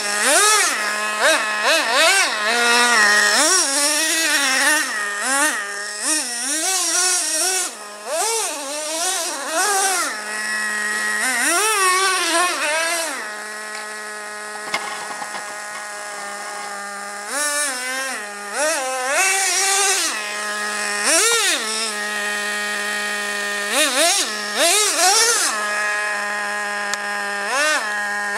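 Revo 2.5 RC monster truck's 2.5 cc two-stroke nitro engine buzzing as it is driven, its pitch rising and falling in quick repeated throttle blips. It settles to a steady, quieter idle for a few seconds about halfway through and again near two-thirds in.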